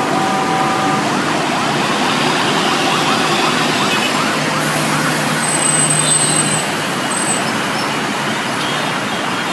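Ambulance siren sounding over dense road traffic noise, with quick rising-and-falling sweeps in the middle of the stretch.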